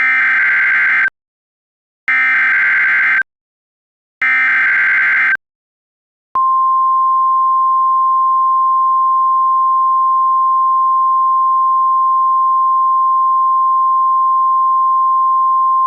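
Emergency Alert System SAME header: three identical bursts of warbling data tones, each about a second long with a second's gap between them. About six seconds in, a single steady tone near 1 kHz starts and holds. This is the weather-radio attention signal for a tornado warning, announcing that the spoken alert is about to follow.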